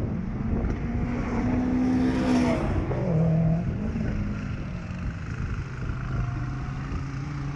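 Cars running on a race circuit during a trackday, with a louder swell about two to three seconds in as engine and tyre noise build. A steady low hum that shifts pitch a few times runs underneath.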